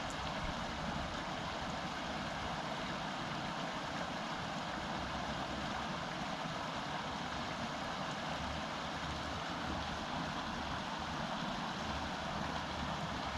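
Small mountain creek flowing, a steady even rush of water.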